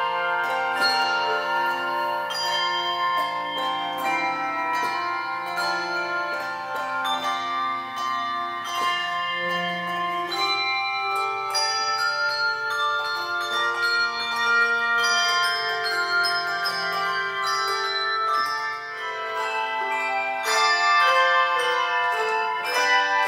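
A handbell choir playing a piece: many tuned bells struck together in chords, each note ringing on and overlapping the next.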